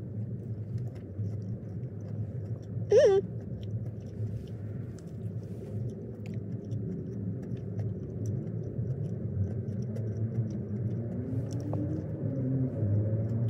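A person biting and chewing a chicken wrap, heard as faint wet clicks over the steady low rumble of a car interior. A short hummed 'mm' comes about three seconds in.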